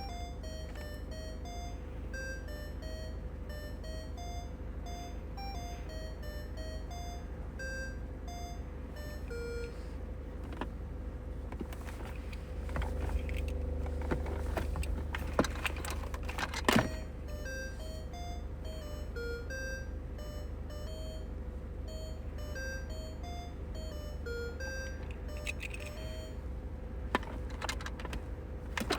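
Vintage toy bird chirping: rapid runs of short, beep-like notes hopping between pitches, over a steady hum. About ten seconds in the chirping stops for several seconds of clicking and rattling, then starts again.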